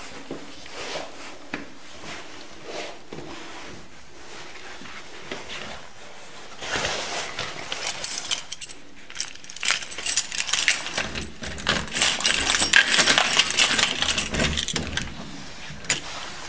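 Soft footsteps, then from about seven seconds in a bunch of keys jangling and clinking at a door lock as the door is unlocked.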